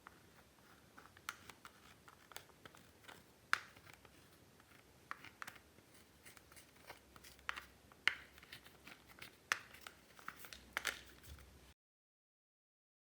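Slime being worked and stretched by hand, giving soft irregular sticky clicks and small pops, several a second. The sound cuts off to dead silence about a second from the end.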